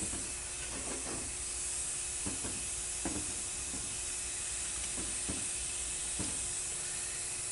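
Steady background hiss with a few faint light taps and clicks as gloved hands handle the aluminium transmission valve body and its gasket.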